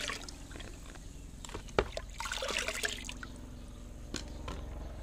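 Rice-rinse-water fertilizer mix being poured into a plastic bucket of water. The pour tails off at the start, then the water trickles and drips, with a few sharp knocks, the loudest a little under two seconds in.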